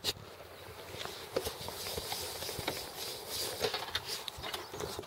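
Handling noise from a camera being moved about: rustling over a steady hiss, with scattered small clicks and knocks.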